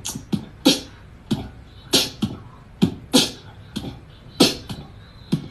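Beatboxing: a steady beat of mouth-made kick-drum and snare sounds, about two hits a second.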